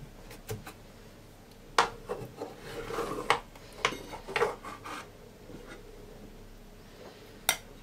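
Metal cake server scraping along an aluminium baking tray as it is worked under a piece of syrup-soaked baklava, with a scrape of rustling in the middle and several sharp metal clicks, the last one near the end.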